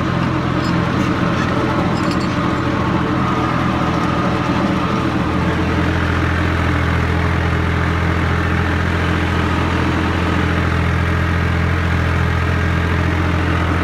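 Al-Ghazi tractor's diesel engine running steadily under load, pulling a cultivator through rain-wet soil. About five seconds in, its deep hum becomes steadier and stronger.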